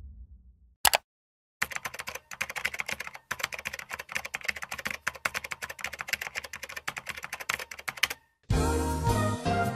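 Fast typing on a computer keyboard: a rapid, irregular run of key clicks lasting about six seconds, after a single click. Music with a beat starts near the end.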